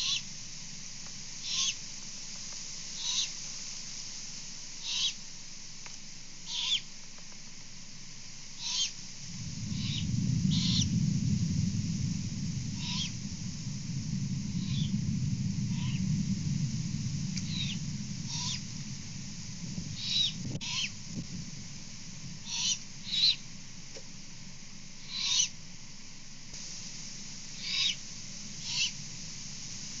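Juvenile great horned owls giving short raspy begging screeches, about one every one and a half seconds. About nine seconds in, distant thunder from an approaching storm rumbles low for some twelve seconds.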